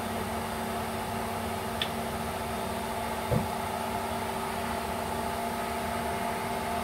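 Induction cooktop running under the heating wok: a steady electrical hum with a cooling-fan whir. A sharp click about two seconds in and a short thump a little past three seconds.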